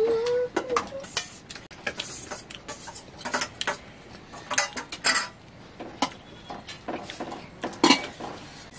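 Steel plates and bowls clinking lightly in scattered, irregular clicks as a meal of rice is served and eaten by hand. A short rising call trails off in the first half second.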